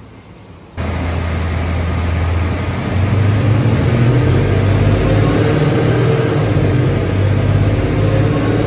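Mercedes C63 AMG's supercharged M156 V8 running at a steady pitch, cutting in abruptly about a second in and getting louder about three seconds in.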